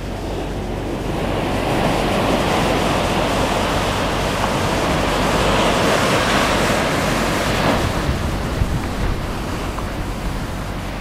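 Ocean surf breaking and washing up the beach, one wash swelling about a second in and easing off after about eight seconds, with wind rumbling on the microphone.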